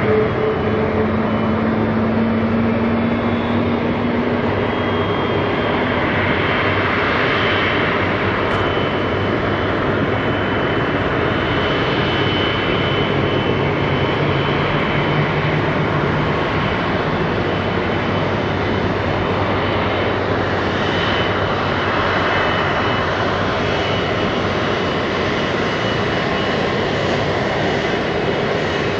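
Rolls-Royce Trent 700 turbofans of an Airbus A330-300 running at taxi power as the airliner rolls along the taxiway. A steady jet noise with a faint high-pitched whine.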